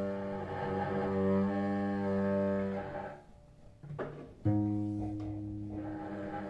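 Cello bowed in long held low notes: one note sustained for about three seconds, then after a short break another held note starts sharply about four and a half seconds in.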